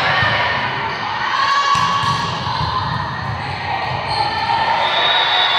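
Echoing gym noise: voices and shouts from players and spectators in a large hall, with volleyballs bouncing on the court floor.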